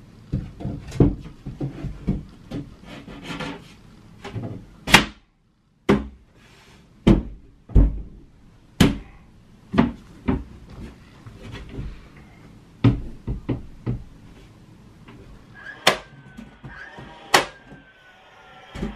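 Wooden shelf boards knocking and thudding as they are fitted into a closet: a string of irregular sharp knocks.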